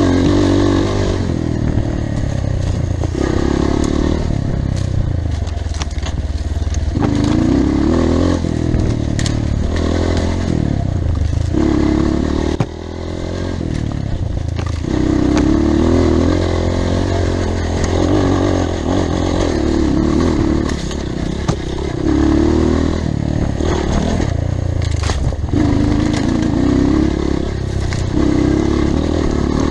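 Off-road motorcycle engine running hard on a rough trail. Its note swells and eases every second or two as the throttle is worked, with scattered knocks and rattles.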